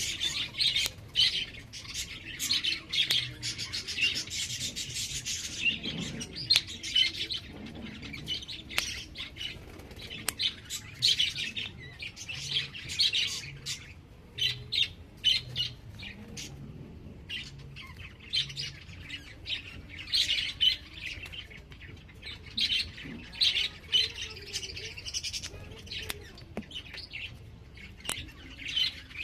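Many small birds chirping, their calls overlapping in a near-continuous chorus with brief lulls, and a few sharp clicks among them.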